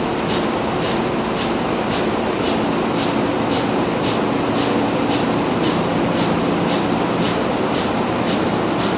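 The large 1932 double-acting diesel engine running steadily, a continuous low mechanical noise under a crisp, even beat of roughly three strokes a second.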